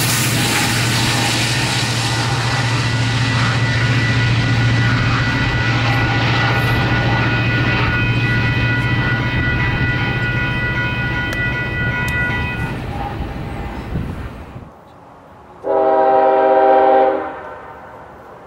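Union Pacific diesel-led double-stack freight train passing close by: loud rolling wheel noise over a steady low engine drone, with a high ringing of several steady tones in the middle. The train noise dies away about 14 s in, and a couple of seconds later a distant diesel locomotive horn sounds once for about a second and a half.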